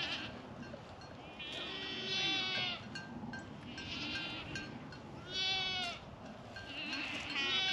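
Kiko goats bleating as the herd comes in: about four long, wavering calls one after another.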